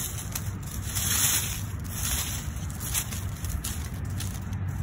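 Dry fallen leaves rustling and crackling as a hand sweeps them aside, loudest about a second in, over a steady low rumble.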